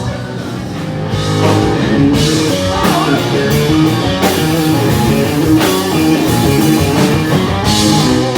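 Rock music with guitar and drum kit.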